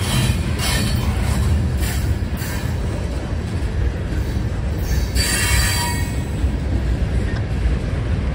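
CSX freight train's covered hoppers and tank cars rolling past close by: a steady low rumble with wheel clicks over the rail joints in the first couple of seconds, and a brief high screech of wheels on the rail about five seconds in.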